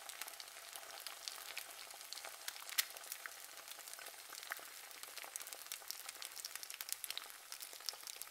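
Pancake-mix bread rolls sizzling in a frying pan: a steady hiss with many small, scattered crackles and pops.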